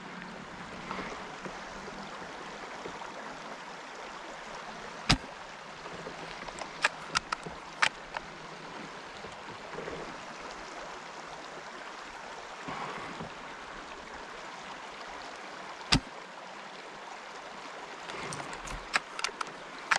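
A stream running steadily. Several sharp clicks cut through it: one about five seconds in, a quick cluster around seven to eight seconds, another near sixteen seconds and a few more near the end.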